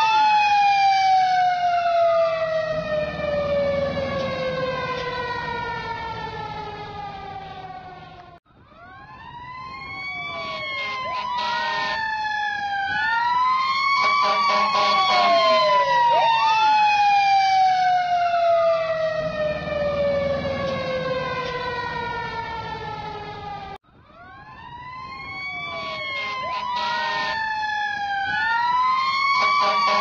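Fire truck siren wailing in rising-and-falling sweeps, then winding down in a long falling tone. It cuts off abruptly twice, each time starting the same sequence over.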